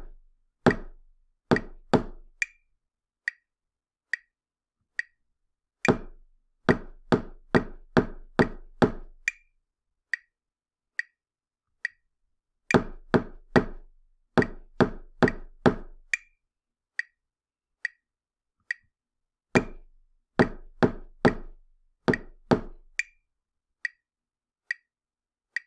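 A steady click beat, a little faster than once a second, with a louder, deeper percussive knock playing a four-beat rhythm of quarter and eighth notes over it. The knocked rhythm comes three times, each followed by four beats of clicks alone, left open for the listener to echo the pattern.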